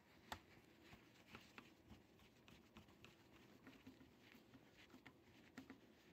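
Faint clicking and scratching of a screwdriver turning a small screw in the metal back panel of a Pioneer VSX-3000 stereo receiver, with one sharper click about a third of a second in.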